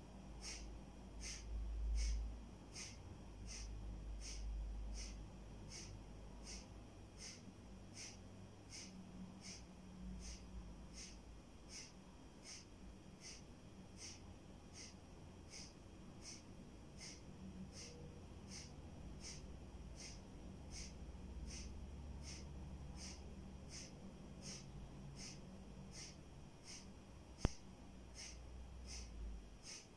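Kapalabhati breathing: short, forceful exhalations through the nose in a steady rhythm, a little more than one a second. A low rumble runs underneath, and a single sharp click sounds near the end.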